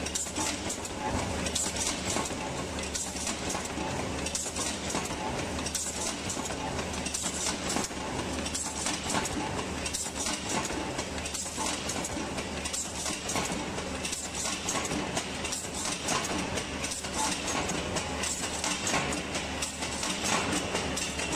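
Punching-type charcoal briquette press running, its stamping mechanism clattering with a steady stream of quick knocks over a low steady hum.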